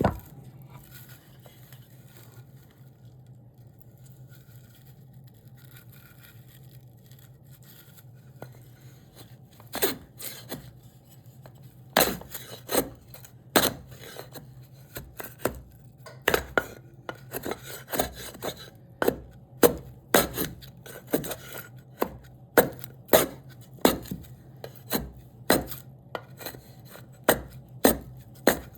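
A hand tool striking cherry wood in repeated sharp knocks as the wood is chiselled and shaped. The knocks begin about ten seconds in, come irregularly and build to about two a second, over a steady low hum.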